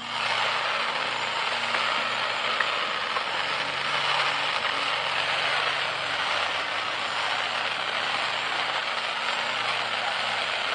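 A consumer firework going off with a dense, steady crackle and hiss that starts suddenly and keeps up without a break.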